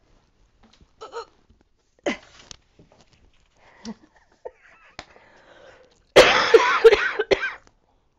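A woman coughing: a short, loud bout of several coughs about six seconds in, after a few faint small sounds.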